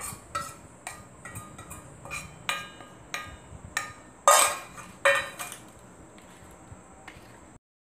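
Stainless steel spoon and bowls clinking and scraping: a string of short metallic clinks as the spoon knocks powder out of one steel bowl into another, the loudest two about four and five seconds in. After that come fainter clicks as the spoon stirs in the steel vessel.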